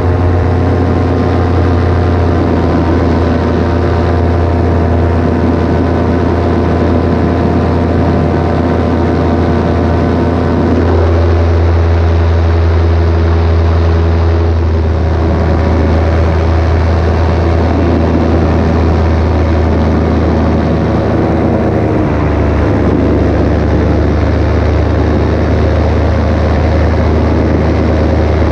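Paramotor engine and propeller running loudly and steadily in flight, with the engine note shifting about a third of the way in and again about three quarters of the way through as the throttle changes.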